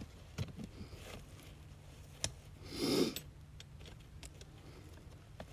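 Faint scattered clicks and clinks of a steel foothold trap and its chain being handled in the dirt, with a brief soft rush of noise about three seconds in.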